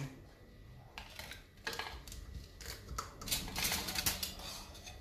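Light clinks and knocks of a small aluminium saucepan and a stainless-steel mixing bowl being handled, several short strikes scattered over a few seconds as warm water is poured into the bowl and the pan is set aside.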